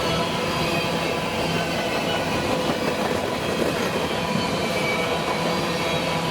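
Freight train rolling past, a steady run of wheel-on-rail noise with a low hum running through it.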